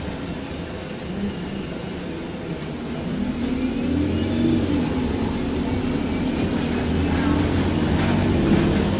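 Alexander Dennis Enviro200 MMC single-decker bus heard from inside the passenger saloon, its diesel engine pulling away about three seconds in: the engine note rises and grows louder, then holds steady as the bus drives on.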